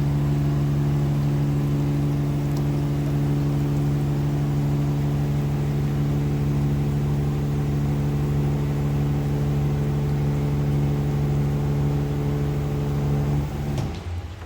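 Motor of a plumber's drain-clearing machine running at a steady, even hum, then switched off shortly before the end, its pitch falling as it winds down.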